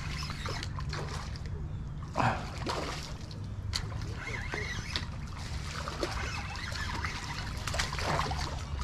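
A hooked sheepshead splashing and sloshing at the water's surface during the fight, with a few sharp splashes over a steady low rumble.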